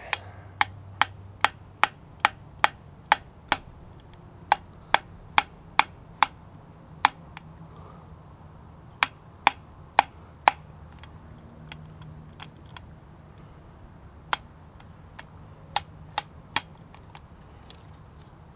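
Sharp metal taps in runs of evenly spaced strikes, about two and a half a second, with pauses between runs: a tool being knocked against the GY6 scooter engine's piston to drive out a wrist pin that is stuck hard.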